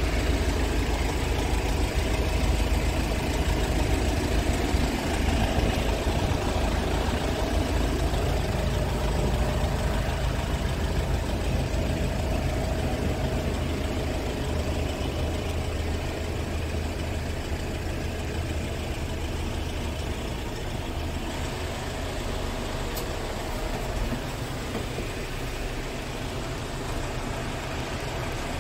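Scania R450 truck's 13-litre inline-six diesel engine idling steadily, heard from inside the cab as a low, even hum that eases a little in the second half.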